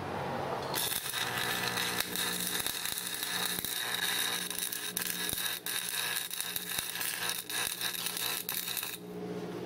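Stick (arc) welding: the electrode's arc crackling steadily as a socket is welded onto a small engine's crankshaft. It starts about a second in and cuts off shortly before the end, over a steady low hum.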